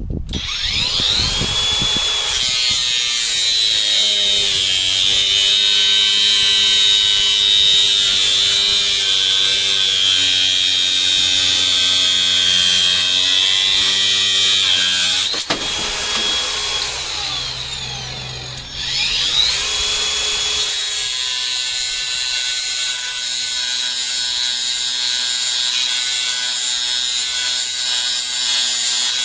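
Cordless angle grinder with a cutoff wheel cutting through a thick piece of metal: the motor spins up with a rising whine, then the wheel grinds through the metal with a loud, high-pitched sound. About halfway through it winds down briefly, then spins up again and keeps cutting.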